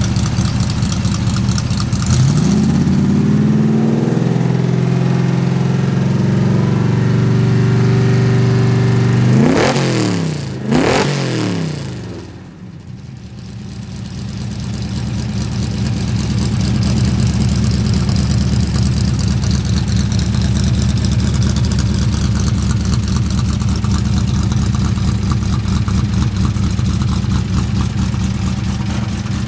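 Tunnel-rammed 383 Mopar V8 running. About two seconds in it is revved up and held at a raised speed. Near the middle it is blipped sharply twice, then it drops back and idles steadily for the rest.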